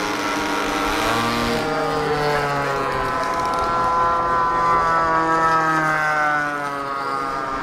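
Radio-controlled model jet aircraft flying past, its engine note drifting up and then down in pitch as it passes. The sound changes abruptly just under two seconds in.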